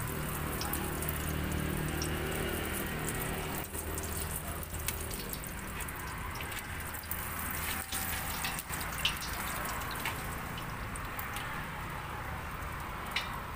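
Hot oil sizzling steadily in a deep pot as skewered fried wontons are reheated, with a few sharp clicks of metal tongs against the pot and rack. A low steady hum runs underneath, stronger in the first few seconds.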